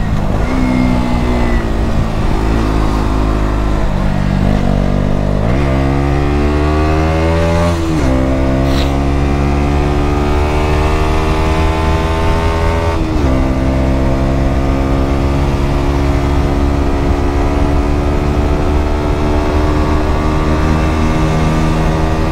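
KTM Duke 125's single-cylinder four-stroke engine through an aftermarket Mivv GP Pro exhaust, heard from the rider's seat under way. About five seconds in it accelerates hard with the pitch climbing. The pitch drops at each upshift, about eight and thirteen seconds in, and then pulls slowly higher in the next gear.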